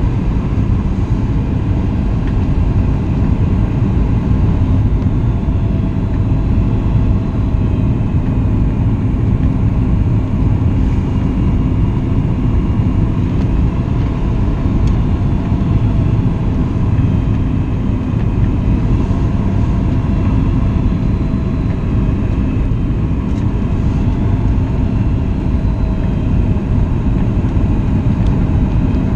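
Steady cabin noise of a Boeing 737 MAX 8 in flight: a deep rumble of airflow and its CFM LEAP-1B engines, with faint, slowly wavering engine tones.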